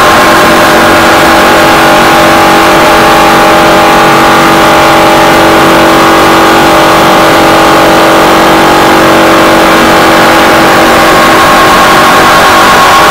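Stock car V8 engine at high revs, heard loud from inside the cockpit at speed. Its pitch holds nearly steady and shifts near the end.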